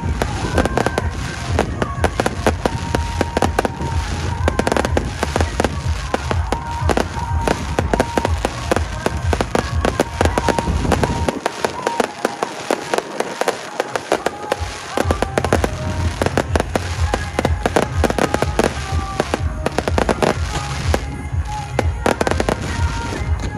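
Fireworks bursting in rapid, dense succession, with booms and crackling, over music played through loudspeakers. About halfway through, the deep booms drop away for a couple of seconds while the crackling carries on.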